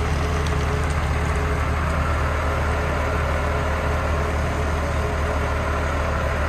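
Concrete mixer truck's diesel engine running steadily at a constant low pitch.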